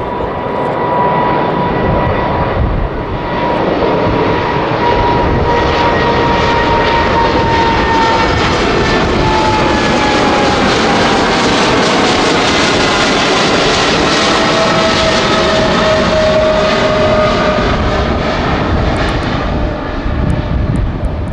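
Boeing 777-300ER's two GE90-115B turbofans at takeoff power during climb-out: a loud, steady jet rush that builds over the first few seconds, with fan whines that slowly drop in pitch as the airliner passes and moves away.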